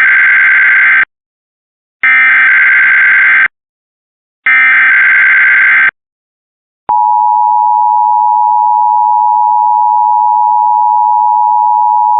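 Emergency Alert System test tones: three bursts of SAME digital header data, each about a second and a half long, then a steady two-tone attention signal that starts about seven seconds in and holds without a break.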